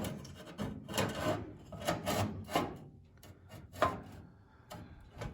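Scraping and light knocks of a sheet-metal floor patch panel being shifted and pressed against the floor as it is test-fitted, in a series of short rubs about a second apart.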